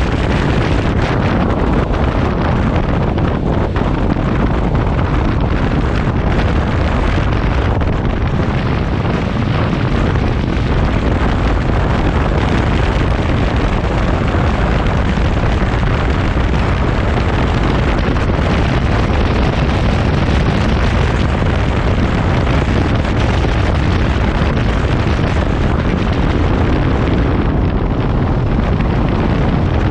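Loud, steady wind buffeting on the microphone of a motorcycle riding at road speed, with engine and road noise blended into the rush.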